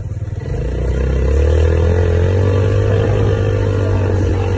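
Off-road buggy's engine accelerating: its note rises and grows louder about a second in, then holds steady as the buggy drives on, heard from the driver's seat.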